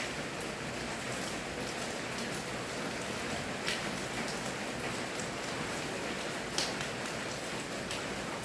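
Steady rain falling, an even hiss with scattered louder drops hitting close by, two of them standing out about three and a half and six and a half seconds in.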